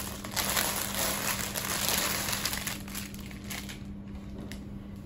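Clear plastic packaging bag crinkling loudly as a folded pink suit is pulled out of it. It thins to a few light rustles and clicks after about three seconds.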